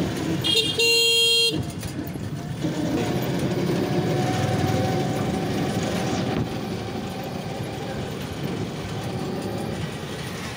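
A vehicle horn sounds once, steady for about a second near the start. After it comes continuous road and traffic noise with a low rumble, heard from inside an open three-wheeler moving through traffic.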